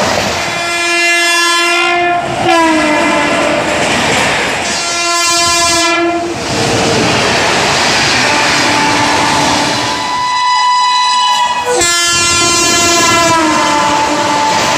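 Indian Railways electric locomotive horns sounding in about four long blasts as LHB express trains pass at speed, the pitch dropping as the horn goes by, over the continuous rush and clatter of the coaches on the rails.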